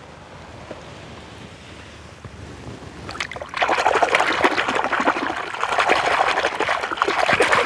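Water splashing and sloshing as a hand sweeps through foamy, muddy water. It starts loud and dense about three and a half seconds in, after a quiet background hiss.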